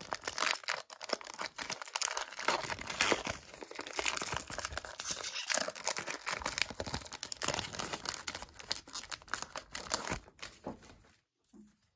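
Plastic wrapper of a basketball trading-card pack crinkling and tearing as it is pulled open, a continuous crackle that stops about a second before the end.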